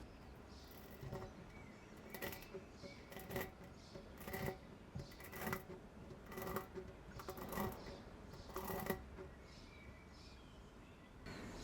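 A series of about seven sharp metallic clicks, roughly one a second, each with a brief ringing tone.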